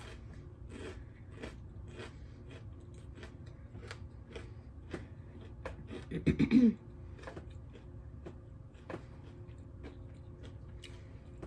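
Close-miked chewing, with repeated small crunches and mouth clicks of food being eaten. About six seconds in comes a brief throat-clearing sound, the loudest thing here.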